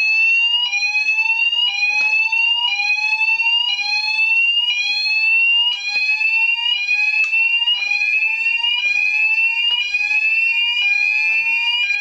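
Fire alarm sounders going off in a full system test: a rising sweep tone repeating about once a second over a steady high-pitched tone.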